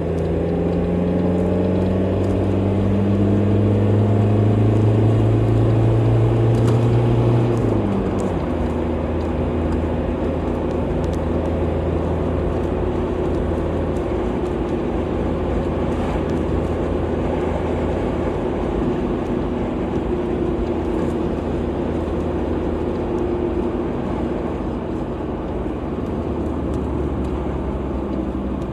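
A car driving: the engine note rises slowly as it accelerates for about seven seconds, then drops suddenly and settles into a steady cruise with road and tyre noise.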